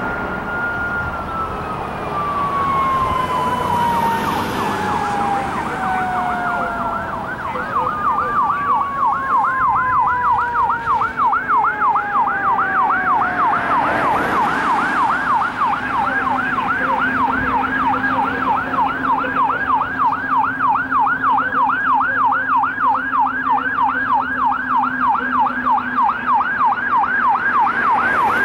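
Fire engine electronic siren. It first sounds a long wail falling slowly in pitch, then switches to a fast yelp sweeping up and down about three times a second as the truck approaches. A low steady hum joins in about halfway through.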